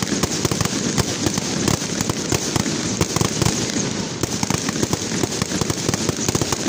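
Fireworks display: a loud bang right at the start, then dense, rapid crackling and popping from many shells bursting at once.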